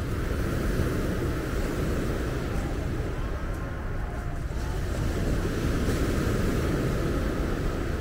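Mediterranean surf breaking and washing over a pebble beach in a steady, unpitched wash, with wind rumbling on the microphone.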